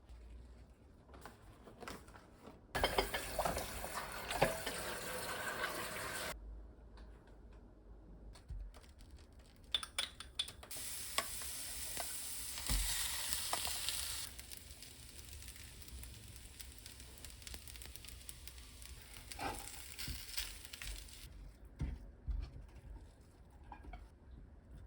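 Food sizzling in a frying pan in two stretches of hiss, the first short and the second longer, with scattered clicks and knocks of a utensil stirring in between.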